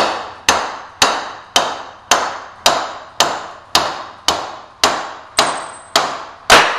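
A soft-face mallet striking the top of a solid stainless steel pump shaft in steady taps, about two a second, each a sharp knock with a short ring. The taps drive the shaft and bearing down through the centrifugal pump's bearing housing until it bottoms out. The last tap is the loudest.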